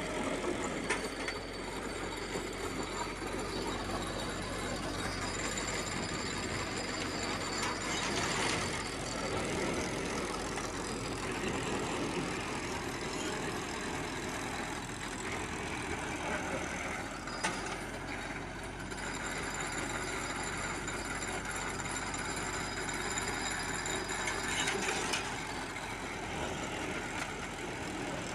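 Farm tractor engine running steadily while powering an Allis-Chalmers Roto-Baler baling hay, with a few brief louder moments along the way.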